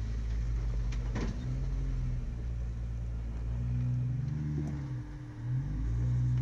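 Jeep Wrangler engines rock crawling at low speed, revving up and down as they work over boulders; the engine sound grows louder near the end as a second Jeep comes close.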